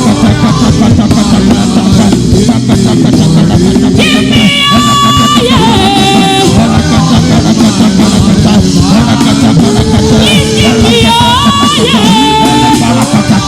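Loud music with a full band and a singer holding long, sliding notes, twice.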